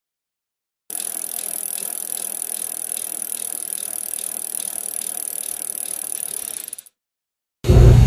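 A bicycle rattling and ticking steadily, starting about a second in and stopping abruptly after about six seconds. Just before the end a loud low hum starts.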